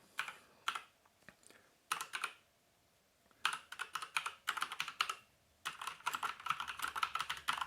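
Typing on a Havit HV-KB389L mechanical keyboard with Kailh Brown switches. A few separate keystrokes come first, then two runs of fast typing from about three and a half seconds in.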